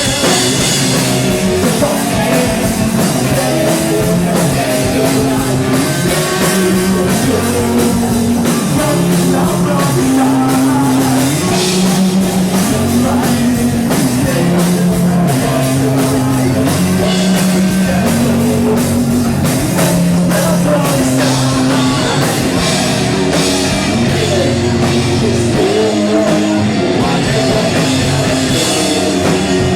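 Live rock band playing a song: drum kit, guitars and bass repeating a riff, loud and continuous.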